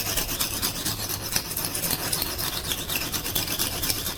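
A steel knife blade being stroked back and forth on the coarse silicon carbide side of an oil-soaked Norton 37C combination whetstone: a continuous gritty scraping of repeated strokes.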